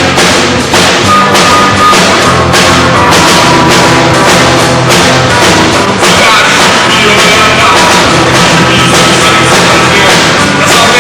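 Rock band playing loudly live, a full drum kit hitting a steady beat under bass and guitar, with sustained higher instrument tones coming in about halfway through.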